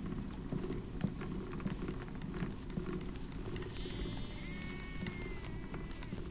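A sheep bleats once, a single drawn-out call of about two seconds starting about four seconds in, over a steady low rumble with small scattered clicks.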